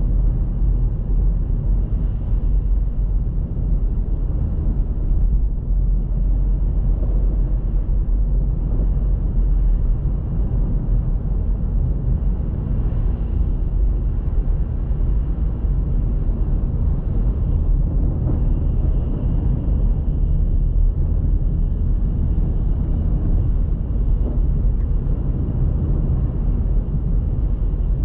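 Steady low rumble of a car being driven: engine and tyre noise, with no sudden events.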